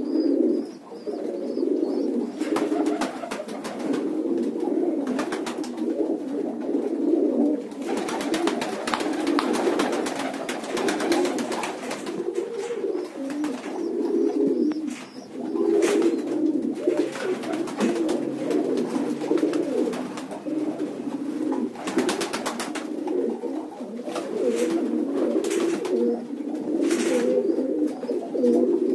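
A flock of domestic pigeons cooing continuously, many low coos overlapping, with brief clicks now and then.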